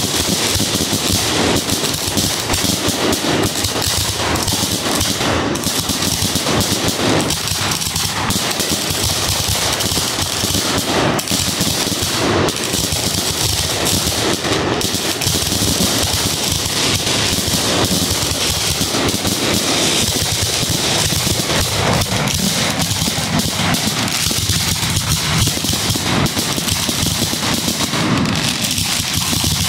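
Aerial fireworks firing in rapid succession, a dense, unbroken string of launch reports and bursts overhead.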